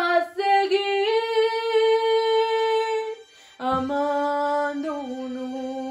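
A young woman singing unaccompanied in Spanish, sliding up into a long held note. About three seconds in she breaks off briefly, then takes up a lower long note that steps down once more and is held.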